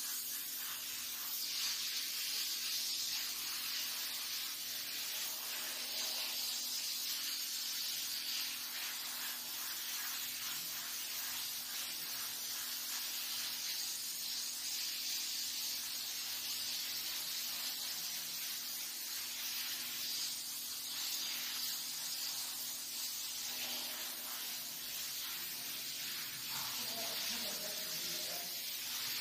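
Gravity-feed paint spray gun spraying paint onto a wall: a steady hiss of compressed air and atomised paint.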